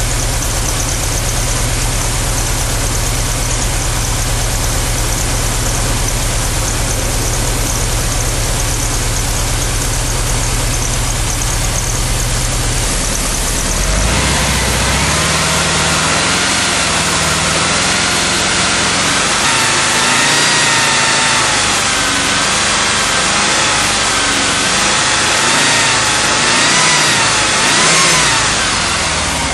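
Stock VW Vanagon 2.1 L water-cooled flat-four (Wasserboxer) engine running at a steady idle. About halfway through the sound changes abruptly, and the engine speed then rises and falls in small repeated swells.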